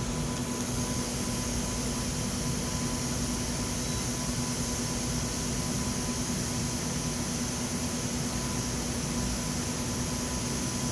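Laser welding machine running: a steady low hum under an even hiss, unchanging throughout.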